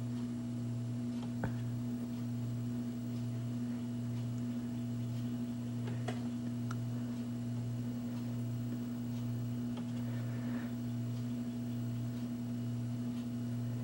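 Steady electrical hum from a running 1950 Zenith Porthole television chassis, a low tone with a higher overtone above it, wavering slightly. A few faint clicks sound over it.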